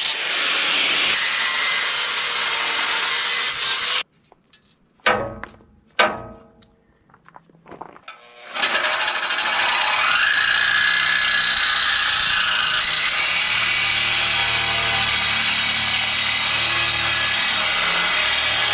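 Angle grinder grinding the steel frame rail of an RV chassis, cutting off abruptly about four seconds in. Two sharp knocks follow a second or two apart, then after a short quiet a corded power tool starts working on the frame, running steadily with a whine that rises a little.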